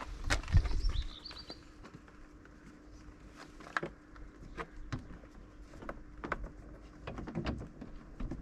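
Scattered clicks and light knocks of a Toyota RAV4's door card and its fasteners being handled and refitted to the door, with a heavier knock and rumble in the first second. A bird chirps briefly near the start.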